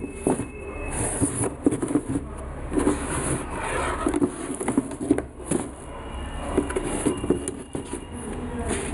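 Handling noise of sneakers being turned over and shifted against each other and a cardboard shoebox: irregular light knocks, rubs and rustles, over a low steady hum.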